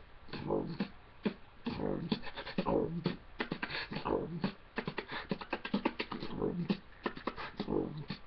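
Freestyle beatboxing: one man making fast vocal percussion, dense sharp clicks and hits with short hummed, pitched sounds in between.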